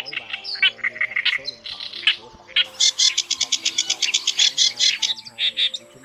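Recorded songbird calls played as a trapping lure: fast runs of short, high chirps, with a brief lull about two seconds in, then a loud, dense chattering run for a few seconds. Faint background music lies underneath.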